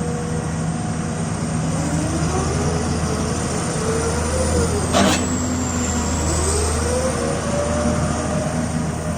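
Komatsu PC200-6 hydraulic excavator running: a steady diesel drone with a whine that rises and falls in pitch several times as the hydraulics are worked, a high steady whistle, and one sharp knock about five seconds in.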